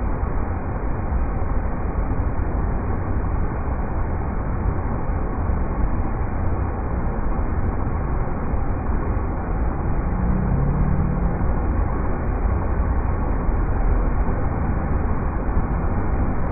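River rapids rushing, a steady unbroken wash of water noise that is heavy in the low end and muffled in the highs.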